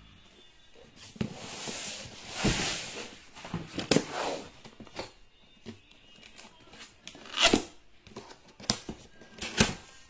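Hands handling a cardboard box and opening its lid: rustling and scraping on the cardboard, then a run of sharp knocks and clicks as the lid flap is worked loose and lifted.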